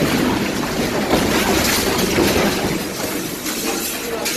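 Loud rumbling and clattering aboard a ship in the moments after it collides with another ship: the impact's aftermath, with loose objects falling and scattering. It eases a little near the end.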